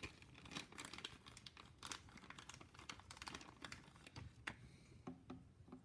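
Faint crinkling and light, irregular clicks of small parts being handled.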